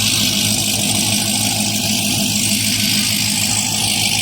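Jeep Grand Cherokee Trackhawk's supercharged V8 idling steadily and loud.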